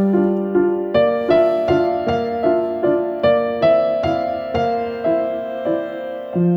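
Background music: a gentle piano melody of evenly spaced, decaying notes, about two or three a second.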